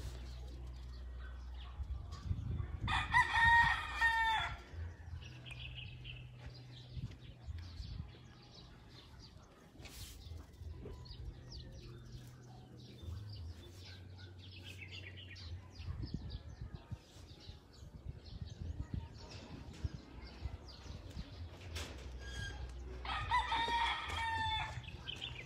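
A rooster crowing twice: once about three seconds in and again near the end, each crow lasting a second or so, over a steady low hum.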